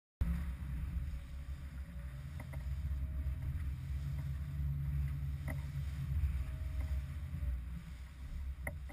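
Small aluminium boat underway through choppy water in strong wind, heard from a bow-mounted camera: a heavy, steady low rumble of wind buffeting the microphone over the run of the hull and spray, with a few sharp knocks as the bow hits the chop.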